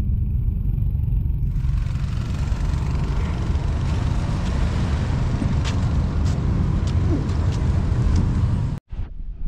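Steady low vehicle rumble with a haze of road or wind noise, broken by a few faint ticks in the second half.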